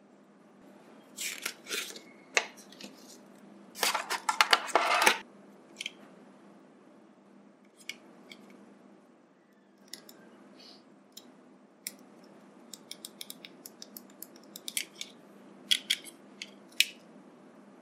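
Hands handling a USB charging cable and a neckband earphone set: sharp clicks and short rustles, loudest in a cluster about four to five seconds in, with a quick run of small ticks and taps later on.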